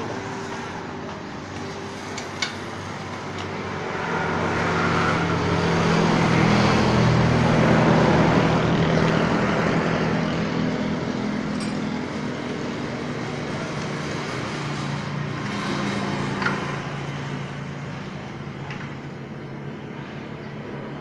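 An engine running steadily, swelling louder for several seconds in the middle and then easing off, with a couple of short sharp clicks.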